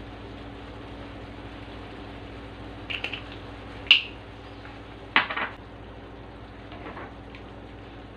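Kitchen clatter over a steady background hum: a few short sharp knocks and clicks, the loudest about four seconds in and another just after five, as a glass herb shaker jar and a slotted spatula are set down and picked up at the pan of tomato sauce.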